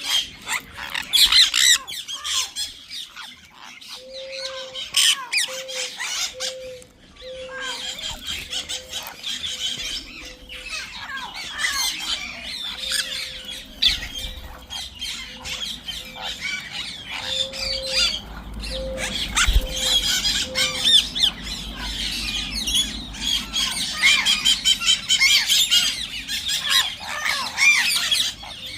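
A flock of parrots squawking and screeching, many shrill calls overlapping without a break.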